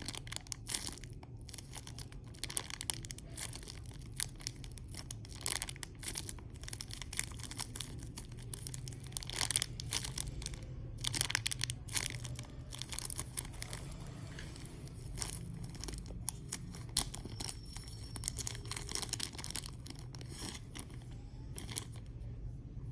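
Hands handling a homemade foam mini squishy, making irregular crackly rustling and tearing-like sounds in quick uneven bursts over a steady low hum.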